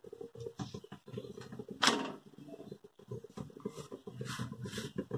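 A hand pressing and smoothing a stack of thin maida dough sheets on a hot tawa, making faint, irregular rubbing and patting, with one louder rustle about two seconds in.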